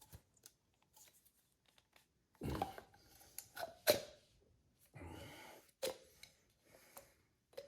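Scattered small clicks and a few short rustling scrapes: handling noise from working a tube of silicone sealant.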